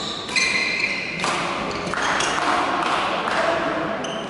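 Badminton rally: a shuttlecock is struck by rackets several times in sharp hits, with court shoes squeaking and scuffing on the hall floor between shots.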